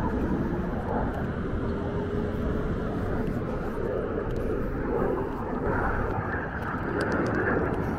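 Distant F-16 fighter jet engine noise, a steady rushing sound, with a faint tone rising slightly in pitch during the first few seconds.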